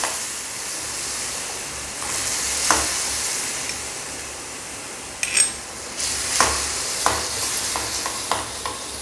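Tamarind extract sizzling and bubbling in hot gingelly oil with the tempering in a steel kadai, stirred with a metal slotted ladle. The ladle clicks and clinks against the pan now and then, one sharp ringing clink about five seconds in.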